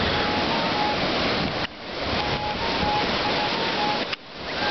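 Ocean surf breaking and washing up the sand, a steady rush of water noise. The sound drops out abruptly twice, about a second and a half in and near the end, then comes back.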